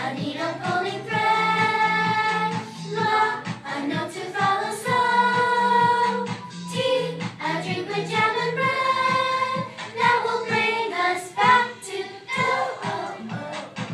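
A group of children singing together in a voice class, with a woman's voice among them. They hold notes for a second or two at a time and slide up and down in pitch between phrases.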